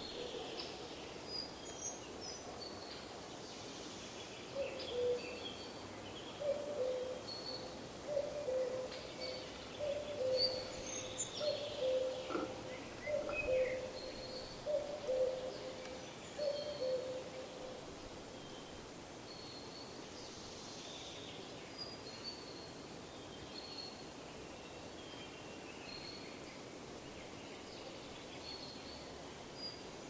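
Forest birdsong: small birds give high chirps and whistles throughout. Between about five and seventeen seconds in, a bird gives a low two-note call about ten times, each pair falling in pitch.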